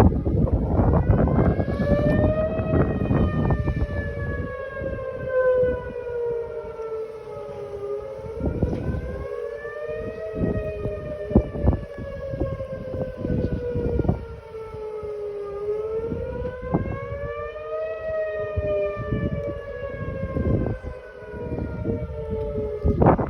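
Outdoor storm warning siren wailing steadily, its pitch rising and falling in a slow cycle about every seven to eight seconds. Gusts of wind buffet the microphone underneath.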